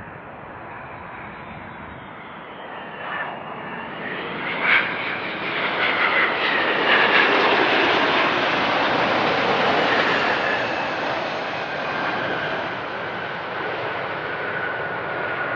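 Three-engined MD-11 jet airliner passing close on its landing, the engine rush swelling to its loudest about halfway through, then easing off as the engine whine falls in pitch. A few short sharp sounds come as it builds up.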